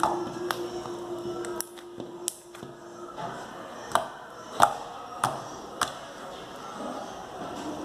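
Glitter slime squeezed and popped by hand for ASMR: a string of sharp wet pops and clicks, some with a short falling ring. A steady low tone runs under the first three seconds.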